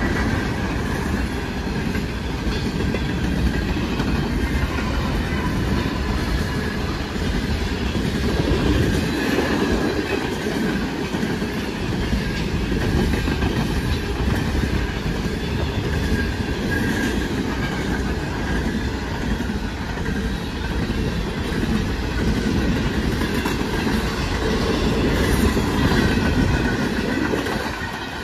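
Freight train cars rolling past steadily on the rails.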